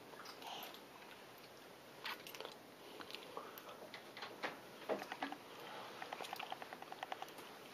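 Faint close sniffing and small mouth sounds from a pit bull, with scattered soft clicks and a quick run of soft ticks near the end.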